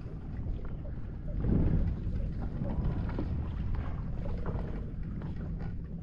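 Wind buffeting the microphone over small waves lapping, with animal calls from the mangrove island mixed in, the kind of noises likened to a dinosaur. The wind swells louder about one and a half seconds in.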